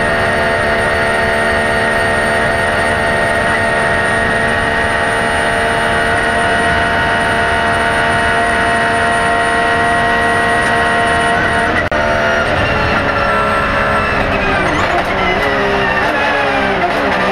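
Porsche 911 GT3 R's 4.0-litre flat-six, heard from inside the cockpit, held at high revs flat out. About twelve seconds in it drops off and the revs fall away in several steps as it downshifts.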